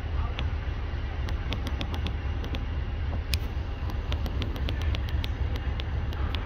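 Diesel locomotive engine idling with a deep, steady rumble, overlaid by scattered sharp clicks.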